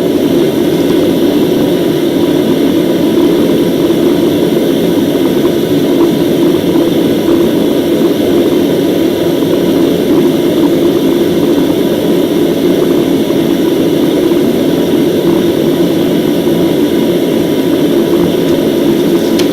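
Blacksmith's forge running: a loud, steady rushing noise that does not change, with no hammer strikes.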